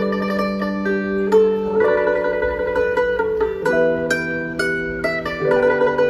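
Live instrumental music: a pipa plucking a melody over electronic keyboard notes that are held for a second or more and change every few seconds.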